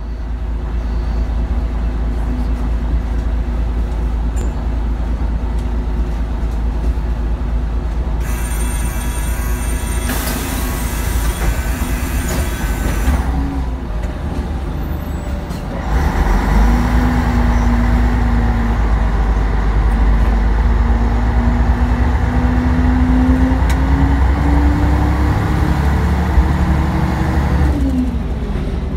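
City bus heard from inside at the driver's end: the engine idles, a hiss of compressed air runs for a few seconds about a third of the way in, then the bus pulls away with the engine note climbing steadily before easing off near the end.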